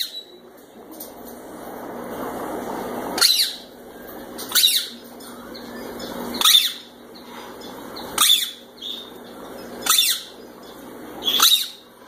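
An animal's short, high-pitched calls, six of them, one every one and a half to two seconds, each falling slightly in pitch.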